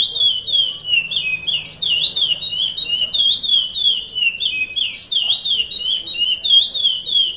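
Curió (chestnut-bellied seed-finch) singing the 'Paracambi rompe nuvem' song: a loud, unbroken run of clear whistled notes, several a second, each sliding down and back up or falling in pitch.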